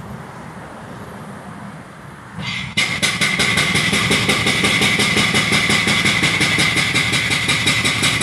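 Excavator-mounted hydraulic breaker starting about two and a half seconds in and hammering the concrete bridge deck: rapid, even blows with a metallic ring, loud over the excavator's diesel engine running.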